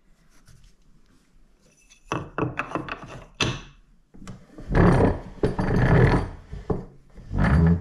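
Wooden bass bar blank being knocked and rubbed against a wooden workbench: a few light knocks about two seconds in, then louder scraping and thumping as it is pushed into place.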